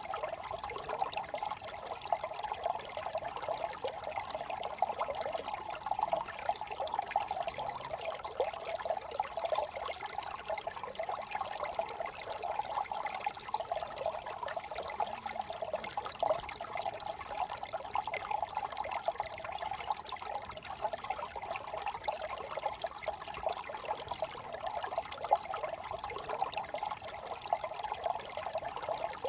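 Small brook trickling and babbling over stones: a steady, unbroken burble of running water.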